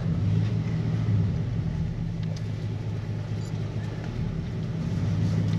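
Car engine and road noise heard from inside the cabin while driving on a dirt road: a steady low hum.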